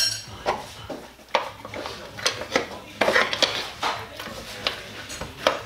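Pry bar clinking and knocking against the LT1 V8's intake manifold in a string of irregular sharp metal clinks, as the back of the manifold is pried loose from the engine.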